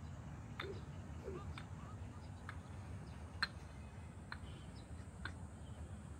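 Short, sharp ticks about once a second, seven in all, over a low steady background rumble.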